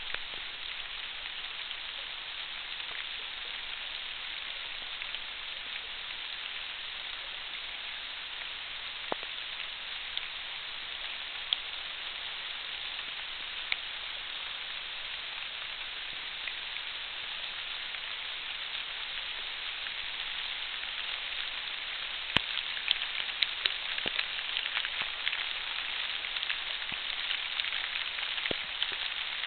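Sun-shower rain falling on garden leaves as a steady hiss, with scattered sharp ticks of individual drops; the drop hits come thicker and a little louder about two-thirds of the way through.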